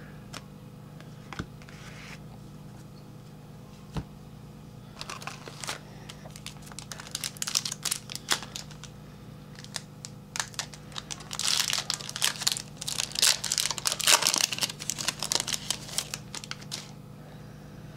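Plastic wrapper of a trading card pack crinkling and tearing as the pack is opened by hand. The noise comes in irregular bursts that start about five seconds in and are busiest in the second half.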